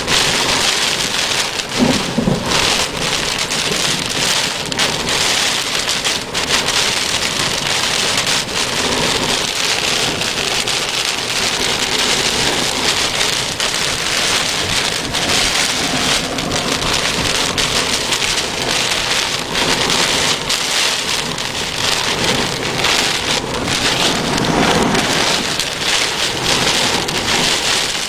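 Heavy thunderstorm rain pouring down steadily: a dense, loud hiss of falling rain with many sharp individual drop hits close by.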